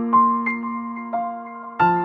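Slow background music played on a piano-like keyboard: single notes and chords struck a few times and left to ring and fade.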